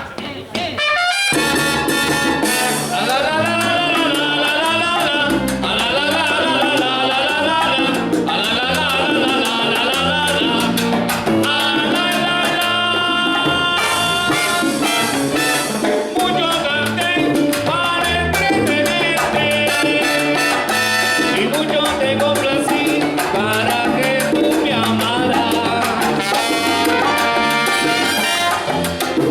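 A live salsa band playing, with a trumpet and trombone horn section over bass and percussion, starting about a second in.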